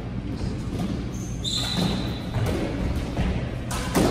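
A brief high squeak of court shoes on a hardwood squash floor about halfway through. Near the end come two sharp smacks in quick succession, a squash ball being struck and hitting the wall as a rally starts.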